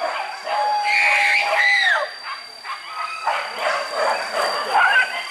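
A pack of hunting dogs on a wild boar chase, giving a long drawn-out call that bends down at its end, then many short yelps and barks at scattered pitches. A steady high-pitched tone runs underneath.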